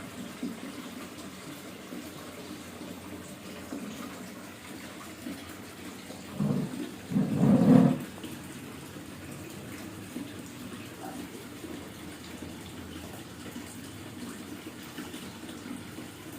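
Boiling water being poured into a coffee drip bag, a steady pouring and trickling sound with two short, louder bursts about six and seven seconds in.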